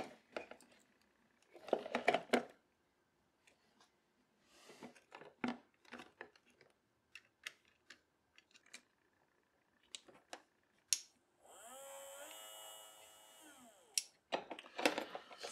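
Scattered clicks and light knocks of wiring, connectors and a battery being handled and fitted into a plastic ammo box. About three quarters of the way through, a short whir of about two and a half seconds rises in pitch as it starts and falls as it stops.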